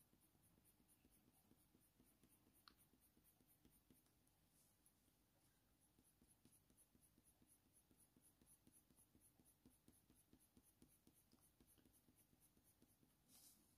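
Very faint scratching of a Faber-Castell Polychromos coloured pencil on smooth hot-press watercolour paper, in many short repeated shading strokes, barely above silence. One faint tick about three seconds in.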